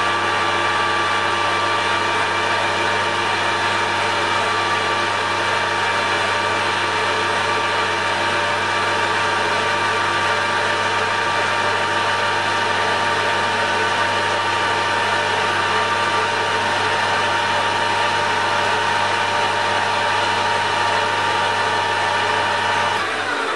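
Metal lathe running steadily, its motor and gearing humming with a few steady whining tones, heard through the lathe bed the camera is leaning against. It shuts off near the end.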